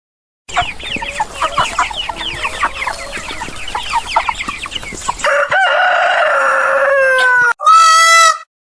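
Chickens clucking and cackling in quick, chirpy calls for about five seconds, then a rooster crowing in one long call, followed by a shorter crow near the end.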